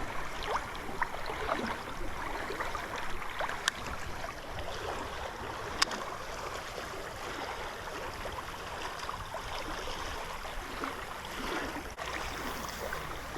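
Steady rush of the San Marcos River's current, running high after heavy rain, with scattered small ticks and two sharp clicks, about four and six seconds in.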